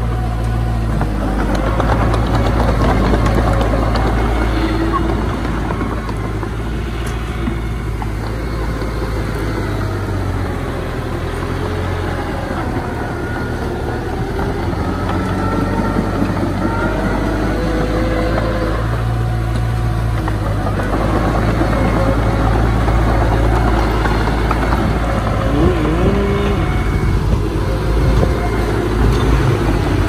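Heavy diesel earthmoving machinery, bulldozer and dump truck engines, running with a deep steady drone that shifts slightly in pitch as the engines work.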